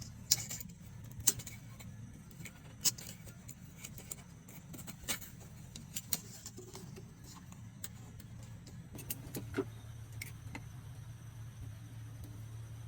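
Scattered sharp metallic clinks and taps from hand tools and parts being handled during engine repair, over a steady low hum.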